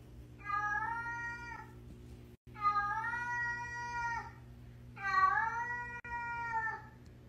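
Domestic cat giving three long, drawn-out meows, each well over a second, that sound like a called 'hello'.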